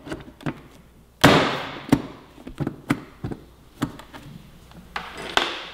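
Motorcycle passenger seat being set onto the tail of a Kawasaki Ninja 400 and pressed down into its latch. There is a loud thump about a second in, then a string of sharp clicks and knocks, and another thump near the end.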